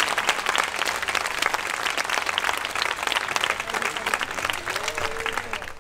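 Audience applauding: dense, continuous clapping from many hands.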